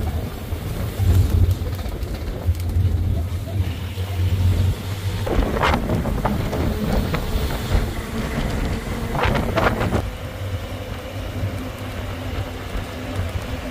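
Open safari canter truck driving on the road: a steady low engine and road rumble, with wind buffeting the microphone.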